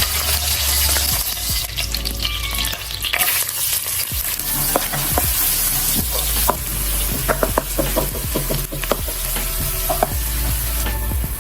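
Food sizzling in a hot pan while being stirred, with many short clicks and scrapes of a utensil against the pan.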